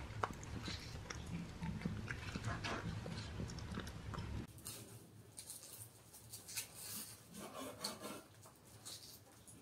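Cats chewing and tearing raw meat scraps in a clay dish, with many small wet clicks. About four and a half seconds in this gives way to scattered sharp taps of a knife cutting raw meat on a wooden chopping board.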